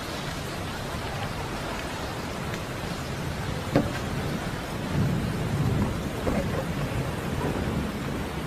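Steady rain with low rumbles of thunder in the second half, and one sharp knock about four seconds in.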